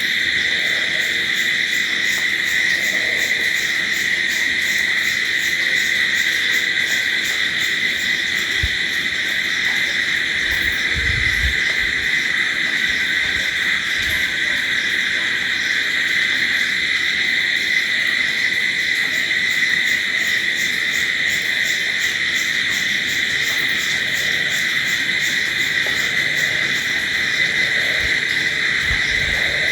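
A dense night chorus of crickets trilling steadily, with fast, even pulsing higher up. A few brief low thuds come about nine to twelve seconds in and again near the end.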